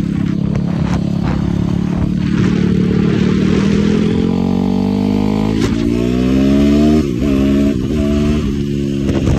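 Yamaha YFZ450R sport quad's engine under hard throttle. Its pitch climbs steadily through the middle, dips sharply, then climbs again in short steps, over a rush of wind noise.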